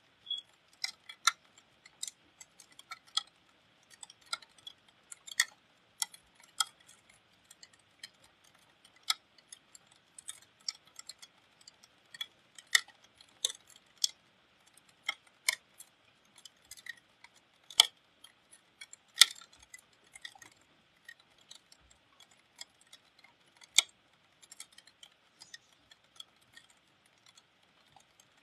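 Raindrops and drips striking a hard surface close to the microphone, making irregular sharp ticks and plinks of varying loudness, over a faint hiss of rain.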